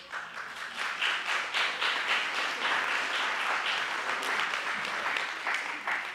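Audience applauding, with many hands clapping at once; it starts suddenly and dies away near the end.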